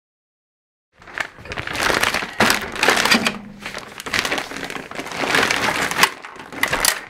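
A blue woven plastic carrier bag rustling and crinkling in irregular bursts as it is handled and pulled off a 3D printer, starting about a second in.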